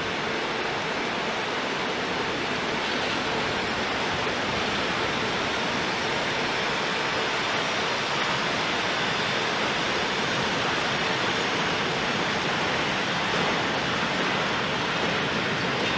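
Freight train of loaded flat wagons and covered goods wagons rolling steadily past, a continuous even rushing noise of wheels running on the rails.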